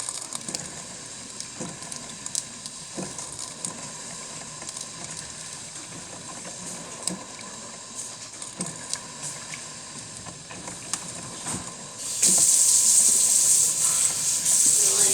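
Cuisinart drip coffee maker brewing: faint crackling and ticking, then about twelve seconds in a loud, steady steam hiss starts suddenly.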